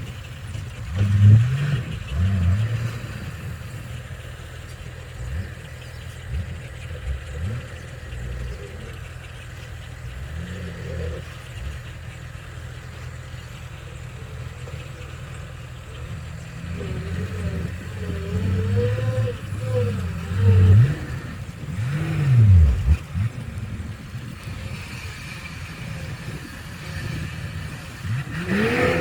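Heavy construction machinery's diesel engine running and revving up and down again and again, with its loudest revs about a second in and again about two-thirds of the way through.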